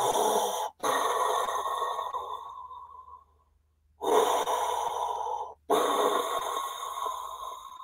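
A man imitating Darth Vader's breathing with his mouth open: two deep, deliberately noisy breaths, each a short in-breath followed by a longer out-breath that trails off, with a brief pause between them.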